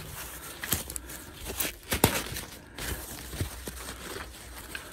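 Rustling and crinkling of white foam packing wrap and plastic film being handled, with a few light clicks and knocks, the sharpest about two seconds in.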